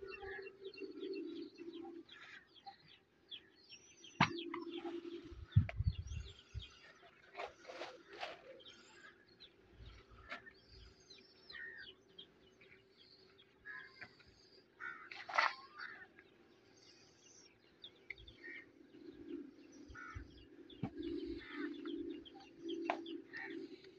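Small birds chirping outdoors, many short calls overlapping throughout, over a faint low hum that comes and goes. A couple of sharp knocks stand out about four and six seconds in.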